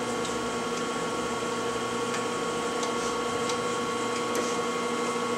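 Steady machine hum made of several constant tones, with a few faint light ticks.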